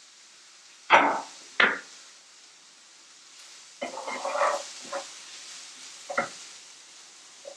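Objects being handled and set down on a hard surface: two sharp knocks about a second in, a short run of clattering around four seconds in, and one more knock about six seconds in.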